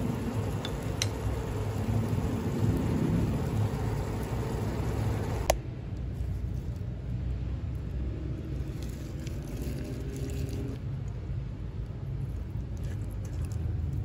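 Stir-fry of water spinach and meat sizzling in a nonstick pan. About five and a half seconds in it cuts off at a click, giving way to quieter sounds of hands handling raw pork and onions in a pot. A low steady rumble runs underneath throughout.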